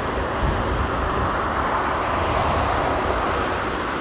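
Boeing 747 freighter's jet engines, a broad rushing noise that swells about a second in and eases near the end, over a low rumble of strong wind on the microphone.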